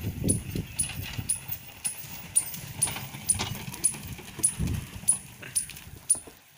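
Bullock cart pulled at a run by a pair of oxen over dry ploughed soil: hoofbeats and the wooden cart's knocks and rattles, about two sharp beats a second.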